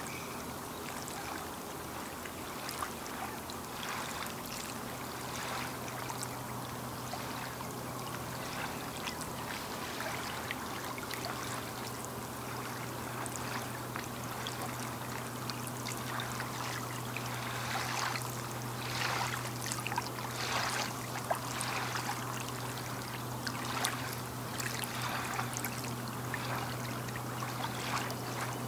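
Small waves lapping and trickling at the lakeshore, with frequent little splashes that come more often in the second half. A steady low hum runs underneath, getting stronger about a third of the way through.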